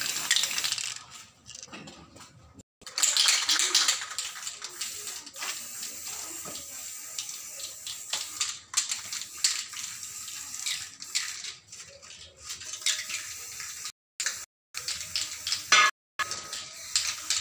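Aerosol spray-paint can hissing in repeated spurts as paint is sprayed onto a metal pipe, the longest and loudest spurt about three seconds in. The sound cuts out briefly a few times near the end.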